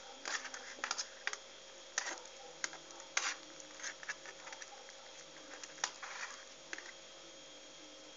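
Hands working cabbage leaves and rice filling in a metal pan: irregular small clicks and taps with short rustling, busiest in the first few seconds and again about six seconds in.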